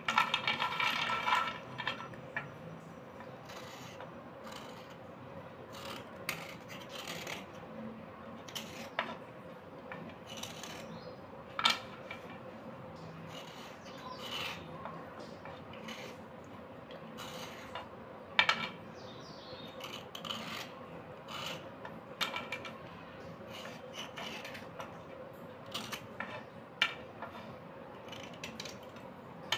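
Slate pencils clattering against each other in a clay bowl for the first couple of seconds, then a slate pencil scraped with a small knife blade: short dry rasping strokes and sharp clicks at irregular intervals.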